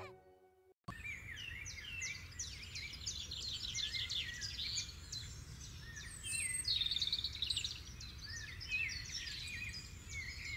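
Birds chirping and twittering, many short overlapping calls and falling whistles, over a low steady background rumble. It starts about a second in, after a brief silence.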